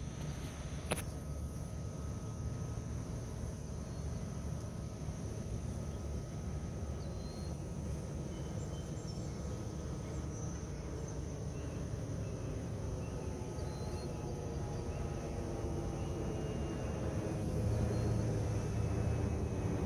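Outdoor ambience: a steady low rumble with a constant thin high drone and faint scattered chirps, a single sharp click about a second in, and a low engine-like sound whose pitch rises and grows louder over the last several seconds.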